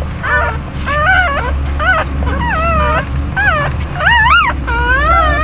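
Newborn puppies crying: a steady run of short, high-pitched squeaky whimpers, each rising and falling in pitch, two or three a second.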